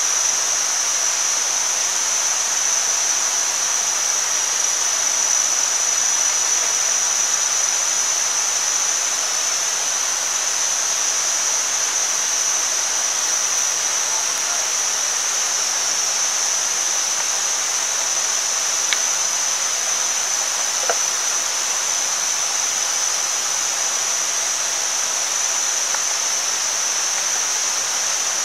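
Meat and onion sizzling on a hot stone slab over a wood fire: a steady, even hiss, with a couple of small pops about two-thirds of the way through.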